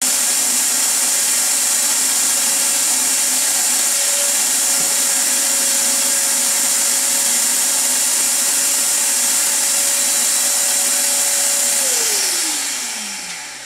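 Vacuum cleaner running steadily, a loud rush of air over a steady motor whine, then switched off about twelve seconds in, the whine falling in pitch as the motor spins down.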